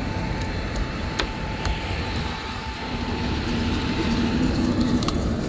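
Wind buffeting the microphone: a steady, uneven low rumble with a few faint clicks.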